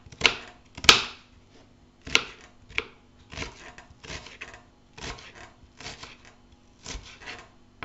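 Kitchen knife chopping small onions on a plastic cutting board: an uneven series of knocks of the blade against the board, a little over one a second, the loudest about one and two seconds in.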